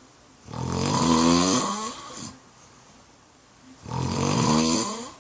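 A middle-aged man snoring loudly in his sleep: two long snores about three seconds apart.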